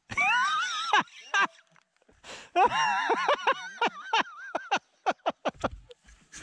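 Dirt bike engine revving hard on a climb, its pitch sliding up and down as the throttle is worked on and off, ending in a quick string of short throttle blips.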